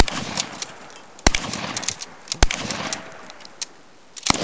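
Guns firing at a television set: a shot, then two more about a second apart and a weaker one, each ringing out. A rapid volley of shots, about five a second, begins near the end.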